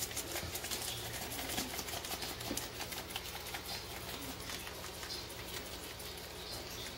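Dry rub shaken from a seasoning shaker onto pork ribs on a metal baking tray: a quick, irregular patter of fine ticks, over a faint steady low hum.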